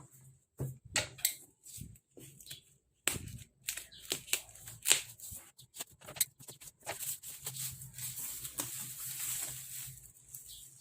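Product packaging being handled and opened: a run of sharp clicks and taps, then a longer stretch of rustling, as of plastic wrap or paper, in the second half.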